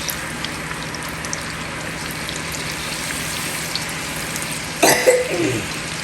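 Hot oil sizzling steadily in a deep-fry pot, with small scattered crackles. About five seconds in, a short vocal sound, like a throat being cleared, rises briefly over it.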